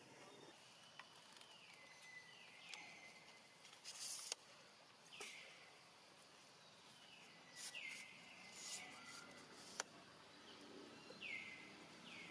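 Faint bird calls: about five short whistles that slide down and level off, over quiet outdoor background with a few brief rustles and two sharp clicks.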